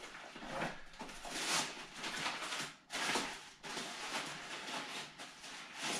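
Rustling and crinkling of the MSR Advance Pro 2 tent's nylon fabric and stuff sack as the tent is pulled out of the sack, in uneven bursts.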